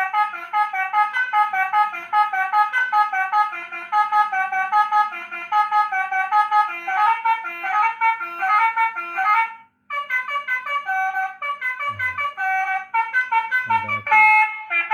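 Electronic basuri horn module playing a fast, brassy melody of stepped notes through a small motorcycle horn speaker. Just under ten seconds in it cuts off briefly and starts a different tune, switched to the next melody.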